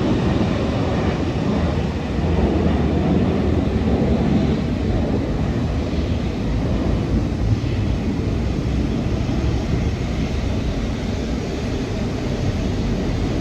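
Jet engines of an Airbus A330-300 airliner on takeoff, heard as a steady low rumble.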